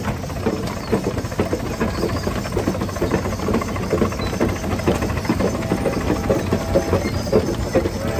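Holt No. 111 steam traction crawler running under way, its steam engine working with a quick, slightly uneven beat of several strokes a second over a steady hiss.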